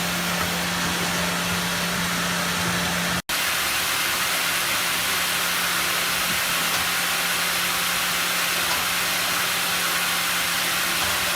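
Sawmill machinery running, a steady rushing noise with a low hum underneath. About three seconds in the sound drops out for an instant, and after that the hum is gone.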